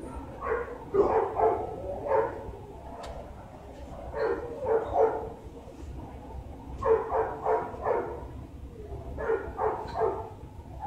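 A dog barking in four runs of several quick barks, a few seconds apart.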